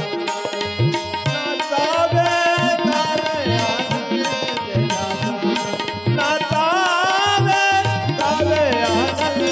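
Devotional bhajan music: regular hand-drum strokes in a tabla style under steady held notes and a sliding, ornamented melody line, with no words sung.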